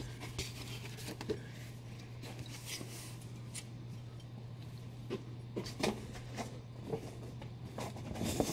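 Comic books being handled and set down on a counter: scattered soft rustles and light taps, over a steady low hum.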